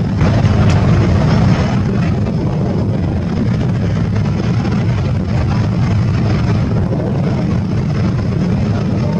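HAL Light Combat Helicopter flying a display overhead: a steady, deep drone of rotor and engine noise that swells slightly about a second in.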